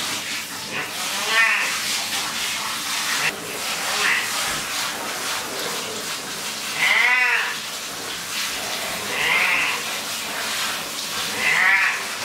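A Persian cat meowing about five times, drawn-out, bending cries with the loudest about seven seconds in, over the steady hiss of a hand shower spraying its fur. The cat is protesting being bathed.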